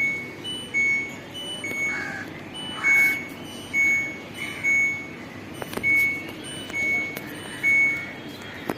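A series of short, high electronic beeps, about one a second, over a low steady hum.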